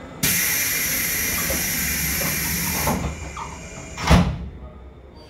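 Compressed air hissing loudly from the 185 series train for about three seconds while it stands at the platform, then a single heavy thump about four seconds in.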